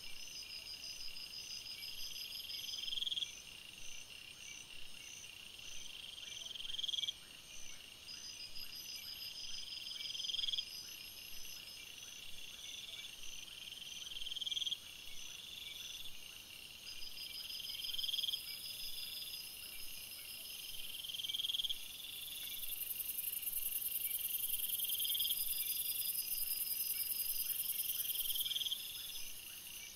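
Night insects chirping: high calls repeat every few seconds, each swelling for about a second and then cutting off, with a higher, faster trill now and then. For much of the second half a steady high-pitched buzz joins in.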